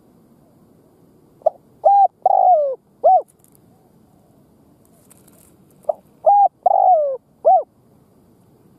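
Spotted dove singing its cooing song twice, about four seconds apart. Each phrase is a short note, a coo, a longer coo that falls in pitch, then a short closing coo.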